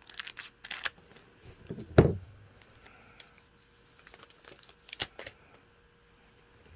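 Trading card pack wrapper being torn open and crinkled, followed by a loud thump about two seconds in and a few sharp clicks and taps near five seconds.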